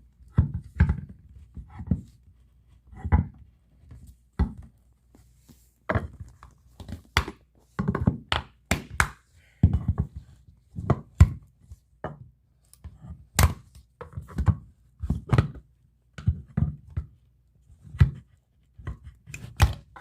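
Irregular thunks and sharp knocks, about one or two a second, from a pry bar working a baseboard loose from the wall.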